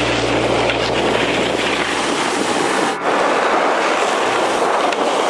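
Snowboards sliding and scraping over packed snow, mixed with wind rushing on the microphone, a steady noisy rush. A low held hum fades out about two seconds in.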